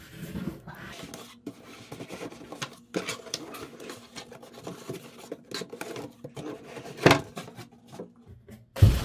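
A speaker's retail box and packaging being handled: irregular rustling, scraping and clicking, with two heavier thumps about seven seconds in and near the end.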